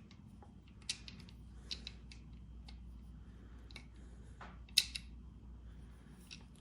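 Scattered light clicks and clatter from a hand PEX crimping tool's metal jaws and handles being moved and adjusted, with one sharper click about three-quarters of the way through.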